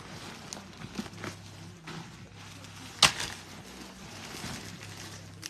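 Clothes and closet items being pulled out and handled: rustling with scattered light knocks, and one sharp knock about three seconds in.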